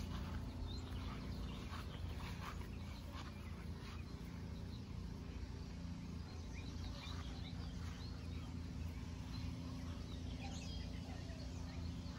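Outdoor yard ambience: birds chirping in short calls, more often in the second half, over a steady low rumble.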